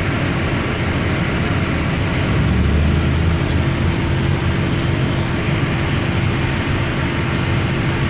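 Steady rumble of a city bus heard from inside, engine and road noise, swelling slightly about three seconds in.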